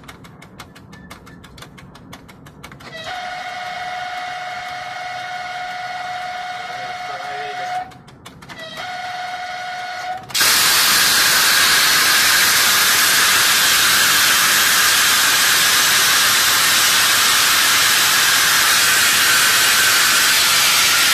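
Train horn sounding in the cab: one long blast starting about three seconds in, a brief break, then a shorter blast. About halfway through, a loud steady hiss of air takes over and runs on: the brake line venting as the driver makes an emergency brake application.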